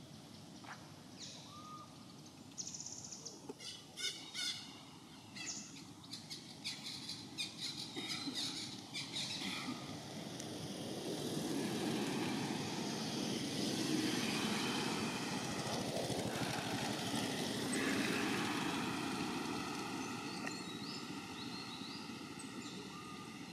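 Outdoor ambience with birds chirping and a run of sharp clicks in the first few seconds, then a rushing noise that swells over several seconds and slowly fades.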